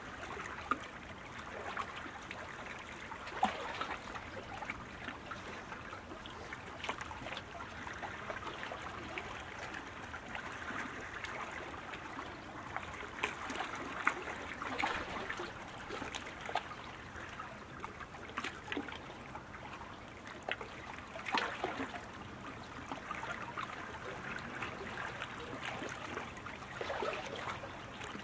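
Water splashing and trickling as sprint kayak paddles strike the water, with a few sharper splashes standing out now and then.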